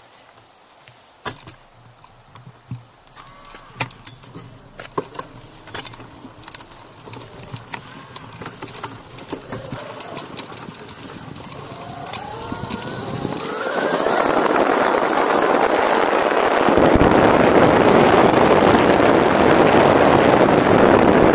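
Bafang BBSHD mid-drive e-bike on a gravel road: at low speed, scattered clicks and rattles from the bike. Then a faint rising motor whine as it accelerates, and from about two-thirds of the way through, loud wind rush on the microphone drowns out everything else.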